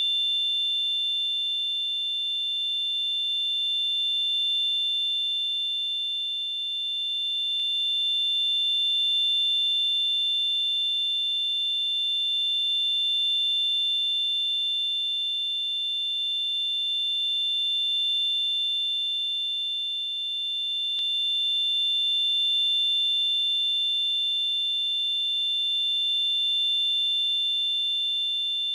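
Simulated tinnitus: a steady high-pitched electronic ringing made of two close tones over a soft hiss, swelling and easing slightly in loudness every four or five seconds.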